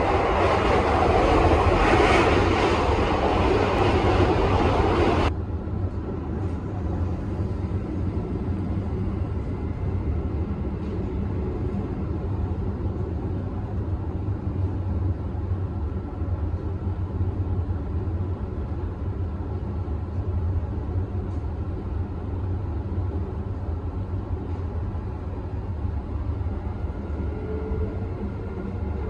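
Cabin noise of a KTM Skypark Link electric commuter train running: a loud rushing for about the first five seconds, then, after an abrupt change, a steadier, quieter low rumble.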